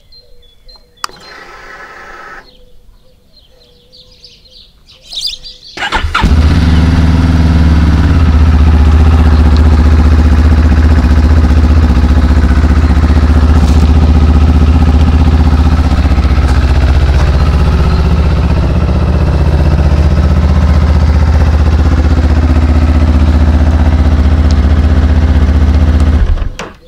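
QJMOTOR SRT 700's parallel-twin engine being started on a freshly fitted lithium battery: a brief whir as the ignition comes on, then the starter cranks and the engine catches about six seconds in. It idles steadily until it is switched off just before the end.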